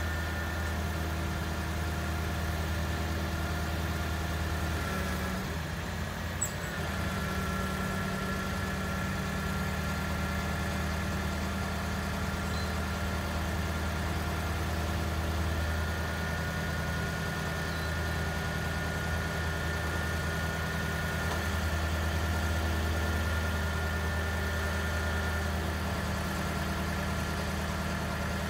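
Engine of an Elliott L55R sign truck running steadily at idle, a low hum with a steady whine above it. The pitch of the whine shifts briefly about six seconds in, with a single click.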